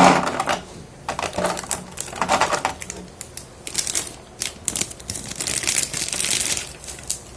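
Plastic figure packaging being handled and opened: bursts of crinkling and rustling with sharp clicks of plastic parts.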